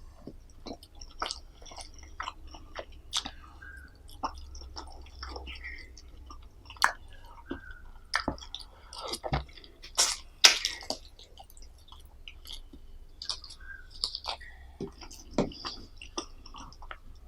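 Close-miked ASMR eating: chewing with wet mouth smacks and sharp clicks at irregular intervals, the loudest about ten seconds in.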